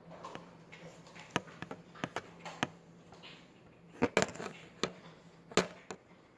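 Scattered light clicks and taps from handling, about eight in all, a cluster of the sharpest coming about four to five and a half seconds in, over a faint steady low hum.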